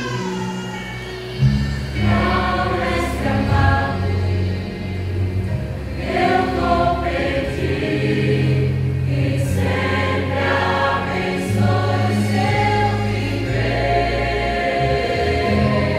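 Choir singing with instrumental accompaniment that holds long low bass notes underneath.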